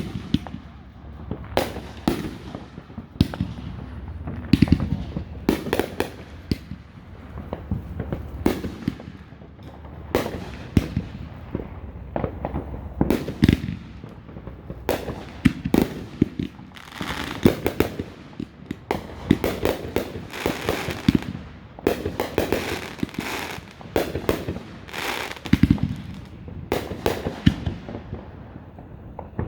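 Aerial fireworks bursting in a continuous, irregular series of sharp bangs, sometimes several a second, each trailing off briefly.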